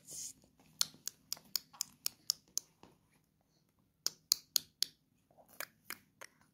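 Hollow plastic ball-pit balls clicking against each other as they shift: a quick run of about eight light clicks, a second run of about four a little later, and a few softer ones near the end.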